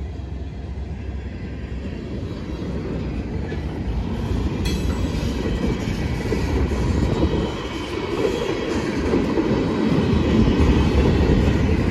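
Freight train rolling past at close range: a steady rumble and clatter of steel wheels on the rails that grows louder, with a sharp clank about five seconds in and a faint wheel squeal after it.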